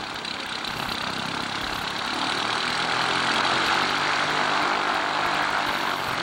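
Small single-engine propeller biplane's piston engine running as the plane taxis past on grass, growing louder toward the middle and easing a little near the end.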